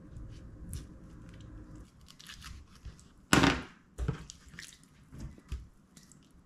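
Raw sea perch fillets being handled on a wooden cutting board: small wet squishes and clicks, with one loud short knock about three seconds in and a smaller one just after.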